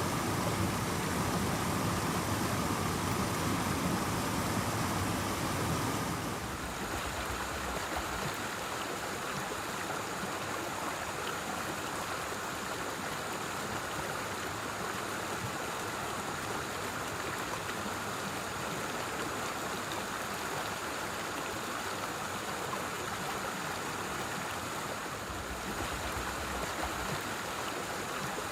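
Forest stream flowing over rocks: a steady rush of water. About six seconds in it drops to a quieter, lighter rush.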